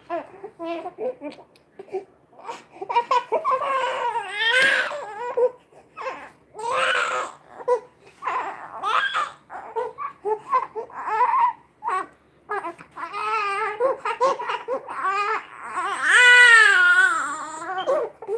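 Newborn baby crying in repeated wailing bursts, loudest near the end.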